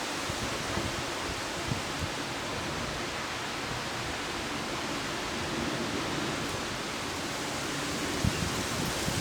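Heavy thunderstorm rain pouring down steadily, an even hiss with a few faint taps of drops striking close by.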